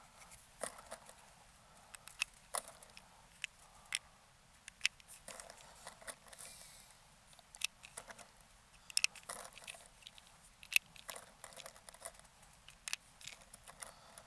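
Small, scattered clicks and rustles of hand handling: .25 calibre H&N slugs being picked up and pressed one at a time into the Umarex Origin's magazine. The slugs go in snugly but do not bind.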